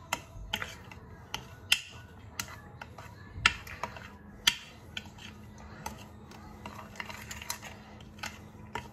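Metal teaspoon clinking and scraping against a ceramic plate while dry ground spice powders are stirred together, with irregular light taps and a few sharper clinks.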